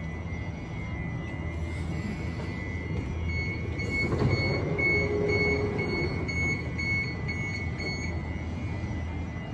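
New Intercity Fleet train's passenger door opening at a platform: door-warning beeps sound about twice a second from about three seconds in, with the rush of the door mechanism between about four and six seconds. Under it runs the steady hum and whine of the stationary train's equipment.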